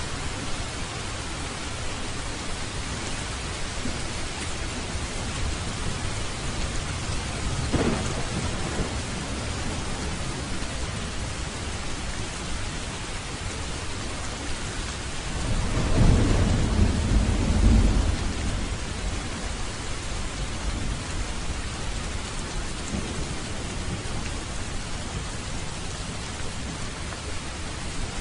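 Steady rain with rolling thunder: a faint rumble about eight seconds in and a louder, longer rumble around sixteen to eighteen seconds in.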